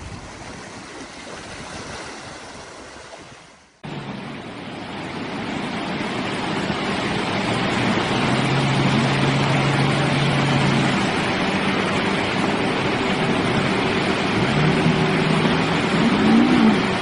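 Rushing water, then, after an abrupt break about four seconds in, a loud steady wash of surf and wind. Under it a pickup truck's engine drones as the truck ploughs through shallow flood water, and it revs up and down near the end.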